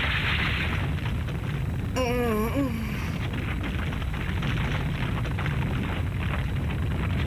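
A deep, continuous rumble, as of rock crumbling and the ground shaking, with a short wavering groan from a wounded woman about two seconds in.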